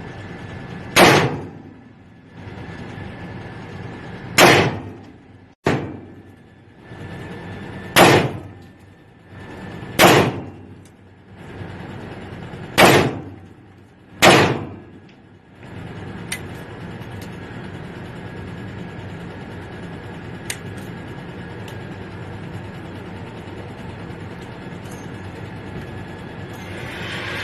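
Six shots from a Taurus .38 revolver, fired one at a time at uneven intervals of about one and a half to three and a half seconds, each with a short echo trailing off. After the last shot, about fourteen seconds in, only a steady background hiss remains.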